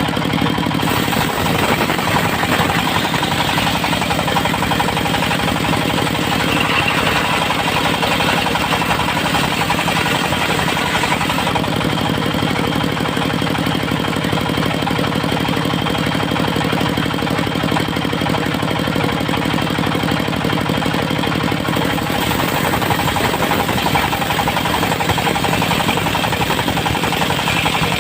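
Engine-driven circular-saw sawmill running steadily with a fast, even engine pulse. The saw noise swells twice, as the blade works through teak.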